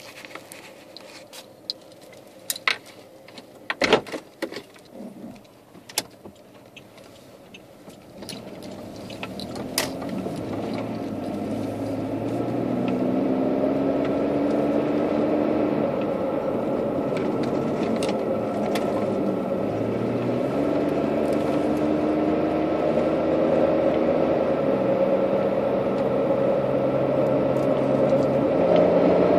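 Car engine and road noise heard from inside the cabin, building as the car picks up speed, with the engine's pitch rising twice as it accelerates. A few sharp clicks and knocks come in the first several seconds.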